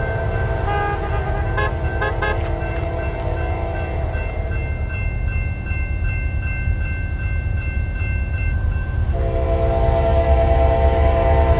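Locomotive horn sounding a long chord blast that stops about four seconds in, then sounding again about nine seconds in as the train draws closer. Under it, the crossing's warning bell rings steadily and a low rumble builds.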